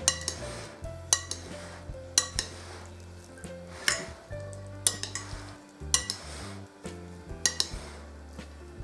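Metal spoon stirring diced vegetables in a glass bowl: soft scraping with sharp clinks of the spoon against the glass every second or so, sometimes two in quick succession. Soft background music plays underneath.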